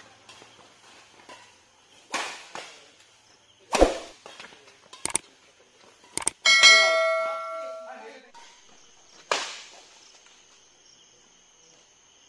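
Badminton rackets striking a shuttlecock, three sharp hits spread through the rally. In the middle, an overlaid subscribe-button sound effect: a few mouse clicks, then a bell chime ringing out and dying away over about a second and a half, the loudest sound here.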